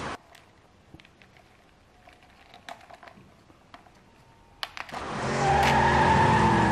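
A few faint plastic clicks as the toy car transporter is handled, then about five seconds in a loud, steady car engine sound starts.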